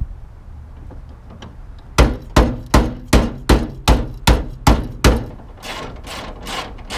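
Hammer blows: a run of about nine sharp strikes, roughly three a second, then a few softer, duller strikes near the end.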